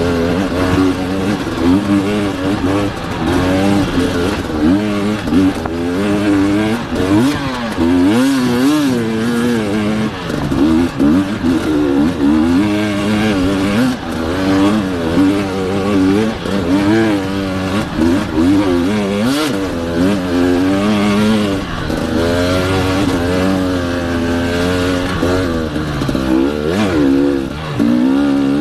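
Enduro motorcycle engine being ridden hard, its pitch rising and falling constantly with the throttle.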